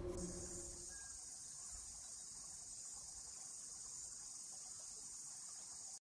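Faint, steady, high-pitched chorus of insects buzzing without a break.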